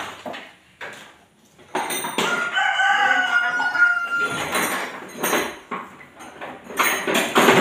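A long animal call, held about two seconds with a slight fall at its end, beginning about two seconds in. Scattered knocks and clatter are heard around it.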